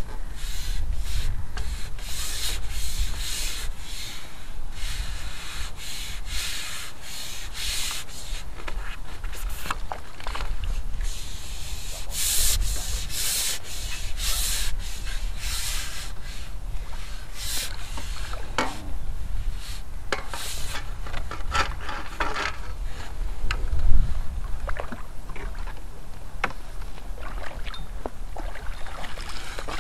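Repeated short rubbing and scraping sounds at an irregular pace, over a steady low rumble of wind on the microphone, with one louder knock late on.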